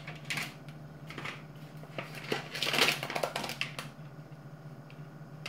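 Plastic packaging being handled, rustling and crinkling in irregular bursts that are loudest about three seconds in, over a steady low hum.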